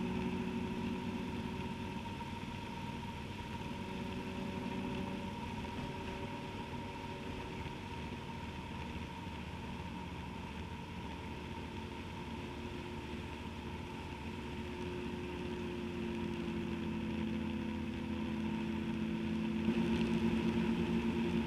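Motorcycle engine running at road speed. Its note eases down about five seconds in, then climbs and grows louder near the end as the bike accelerates.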